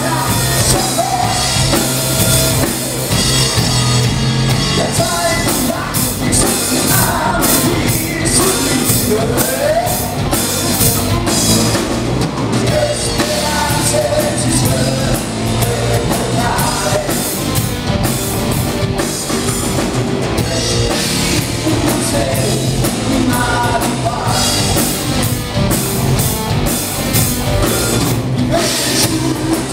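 Live rock band playing loud: electric guitars over a drum kit, a dense, unbroken full-band sound.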